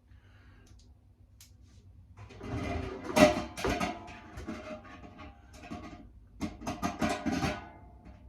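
Two spells of metallic clattering and ringing from work on a tumble dryer's drum assembly with a socket wrench, the first about two seconds in and the second near the end.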